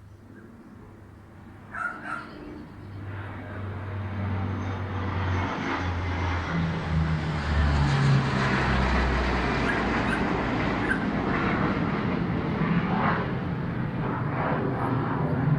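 Airplane flying low overhead: engine noise builds over several seconds, then holds loud, with low droning tones that shift in pitch.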